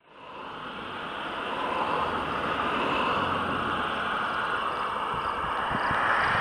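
Steady outdoor wind noise fading in over the first two seconds, with gusts buffeting the microphone near the end.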